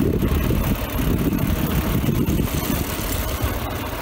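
Wind buffeting the microphone of a camera carried on a moving bicycle: a steady, loud low rumble.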